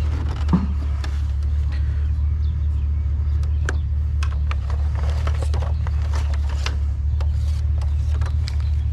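Steady low engine drone of a pickup truck heard from the cab, with scattered light clicks and rattles and one brief knock about half a second in.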